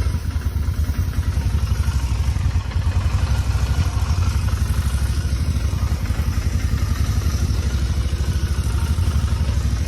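Vehicle engine idling steadily with a loud pulsing low rumble, just after being started. A faint high whine sits over it, which the owner suspects comes from a failing fuel pump in the gas tank.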